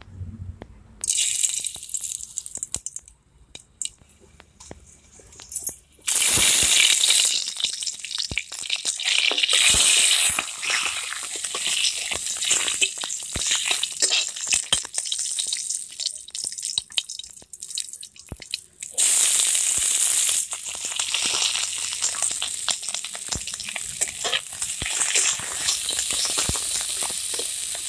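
Hot oil sizzling in a metal kadai as whole spices, then bay leaves and chopped garlic and onion are dropped in, with a metal spatula scraping and tapping against the pan. The sizzle starts about a second in, dies down, then comes back loud about six seconds in and surges again later on.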